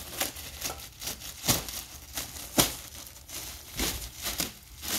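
Plastic wrapping on a carpet roll crinkling and crackling as it is handled and cut away by hand, in a string of irregular sharp crackles.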